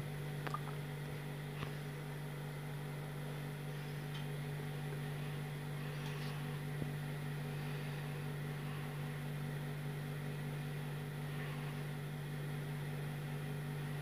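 Hampton Bay Callaway 2 ceiling fan motor running on medium speed: a steady electric hum.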